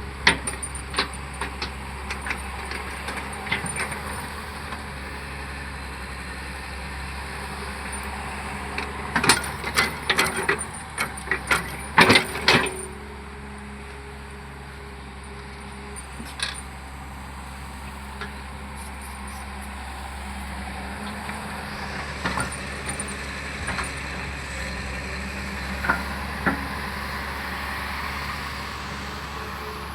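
Hyundai excavator's diesel engine running steadily under work, with sharp metallic clanks and knocks throughout, a dense cluster of them about nine to thirteen seconds in.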